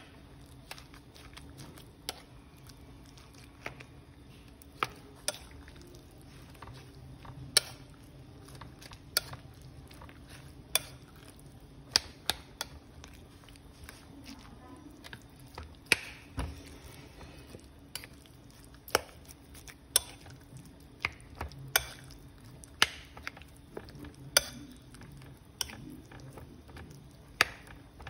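A utensil stirring a wet mixture of raw egg and ground pork in a bowl, knocking sharply against the bowl's side about once a second at uneven intervals.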